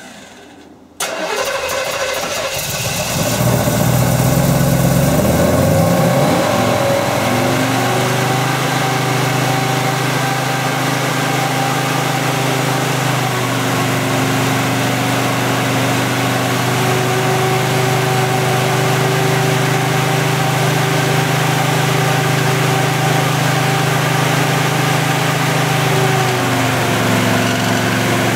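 A Camaro Z28's newly installed carbureted V8 is cranked over by the starter about a second in and catches after a couple of seconds. It revs unevenly as the throttle is worked at the carburetor, then settles into a steady idle. This is the new engine's first successful start.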